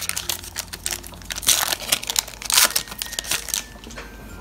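Foil wrapper of a Pokémon booster pack crinkling as it is pulled open by hand: a run of irregular crackles, loudest about one and a half and two and a half seconds in.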